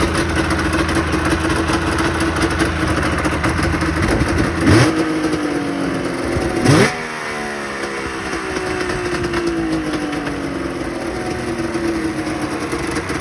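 1998 Yamaha SRX 600's three-cylinder two-stroke engine, fitted with a DG silencer, idling. The throttle is blipped quickly twice, a little under five and seven seconds in, and each time the idle slowly settles back down.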